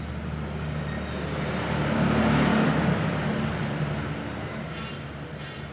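A road vehicle passing by: its engine and road noise grow louder, peak about two to three seconds in, then fade away.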